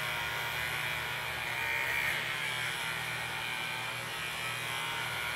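Wahl Arco SE cordless pet clippers running with a steady buzz as they shave a ragdoll cat's long fur.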